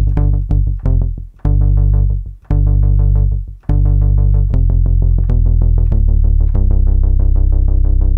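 Modal Electronics Cobalt5S synthesizer playing a deep, bass-heavy pattern of repeating notes, about four a second, while its knobs are turned. The sound cuts out briefly a few times early on and shifts in pitch and tone about six seconds in.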